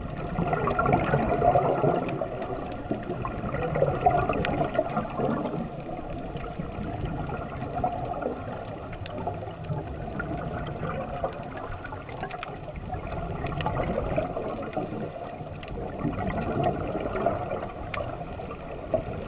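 Scuba regulator bubbles gurgling underwater as a diver breathes out, swelling and fading every few seconds with each exhalation.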